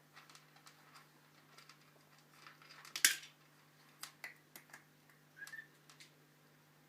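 Dry kibble clicking and rattling against a plastic cat food maze as a cat eats from it. The clicks come irregularly, with one sharper clatter about three seconds in.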